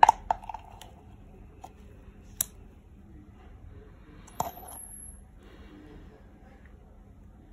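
A plastic spatula tapping and clicking against a stainless steel mixing bowl as thick lotion is scooped in: a quick run of sharp taps at the start, then single taps about two and four seconds later, with faint soft handling noise between.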